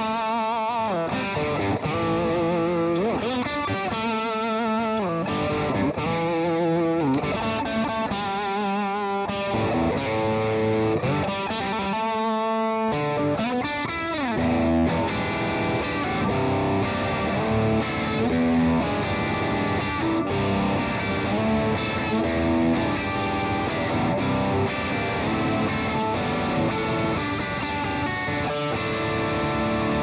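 Squier Hello Kitty Stratocaster electric guitar played amplified: single-note lead lines with heavy vibrato and wavering bends through roughly the first half, then busier, denser riffing for the rest.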